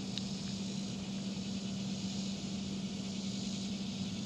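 Steady outdoor ambience: a constant low hum with an even high hiss over it.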